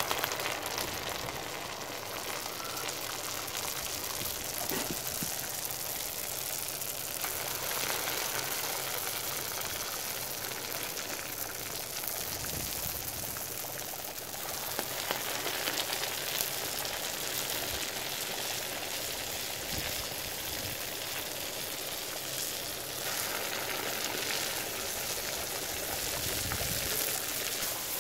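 Molten copper poured from a crucible into sand moulds, with a steady hiss and fine crackling as the metal fills the cavities and bubbles in the sand.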